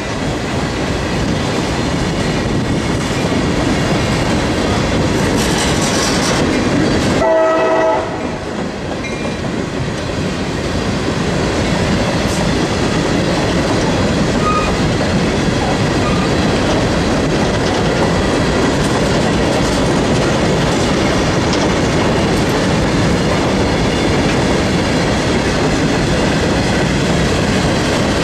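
CSX freight train of hopper cars rolling past: a loud, steady rumble of steel wheels on the rails with a clickety-clack of wheels over joints. About seven seconds in, a brief pitched note sounds for about half a second.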